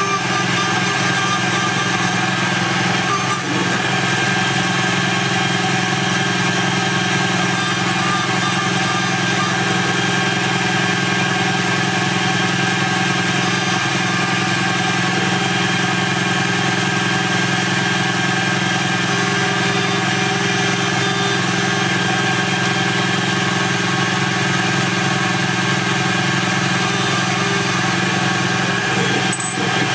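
DMC2 CNC mill spindle driving a 4 mm end mill through 6061-T6 aluminium under flowing coolant: a loud, steady machining whine of several held pitches that does not change.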